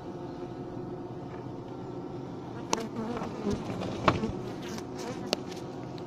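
Honey bee colony humming steadily inside a frameless wooden Japanese box hive, with three sharp clicks in the second half.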